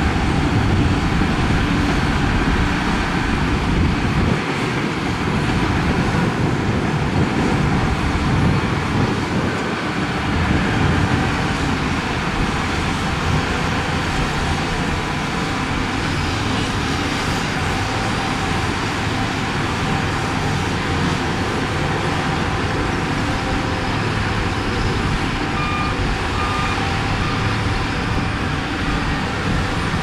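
Heavy diesel earthmoving machinery, bulldozers pushing dirt, running steadily under load. About 25 seconds in, three short beeps sound, like a reversing alarm.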